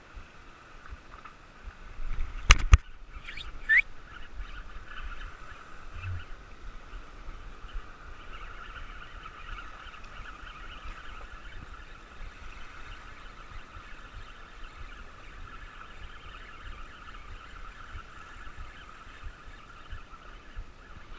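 Spinning reel being wound in: a steady whirring from the turning handle and rotor, after two sharp clicks and a short rising squeak in the first few seconds.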